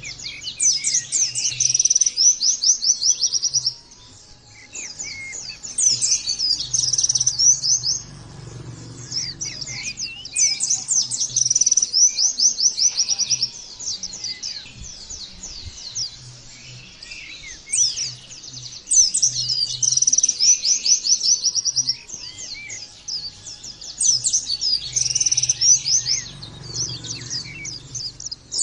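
White-eye (pleci) singing, a fast, high chattering song in phrases of two to three seconds, repeated again and again with short pauses between.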